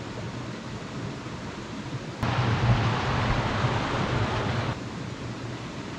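Steady rush of river water tumbling over rocks in a gorge. It jumps abruptly louder about two seconds in and drops back near five seconds.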